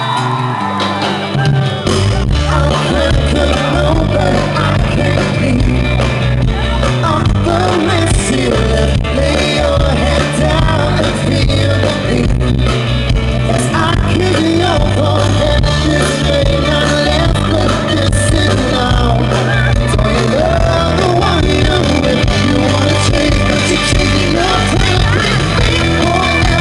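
Live pop-rock band playing loudly, a male lead singer singing into a handheld microphone over electric guitar and band; the full low end of the band comes in about two seconds in.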